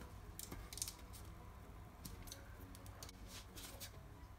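Faint rustling and soft ticks in several short bursts as a cotton kitchen towel is spread over a baking tray of buns.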